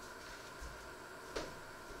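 Soft footsteps on a tiled floor, with one short sharp click about two-thirds of the way through, over faint room hiss.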